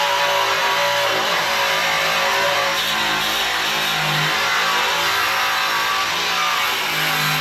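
Power tool spinning a wire wheel against rusty car body steel, grinding the rust out, the motor's pitch shifting as it is pressed in and eased off.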